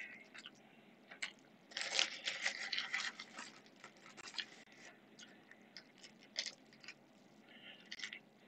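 Faint intermittent rustling and crinkling with small clicks, as of things being handled, louder for a second or so about two seconds in and again near the end.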